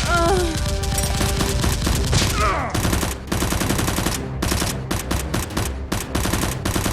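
Rapid, sustained automatic gunfire: shots in quick succession, broken by a few short pauses.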